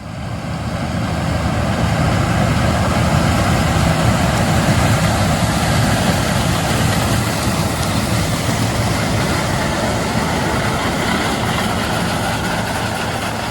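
A 544 hp New Holland CR 9.90 combine running steadily while harvesting corn: a continuous low engine drone under a broad hiss from the threshing machinery. It fades in over the first second or two.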